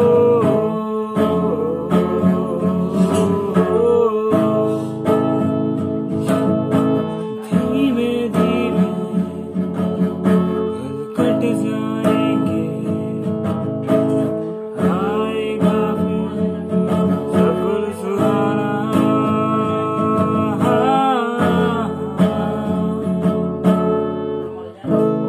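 Acoustic guitar strummed in a steady chord pattern, the chords changing every few seconds, while a young man sings a melody over it.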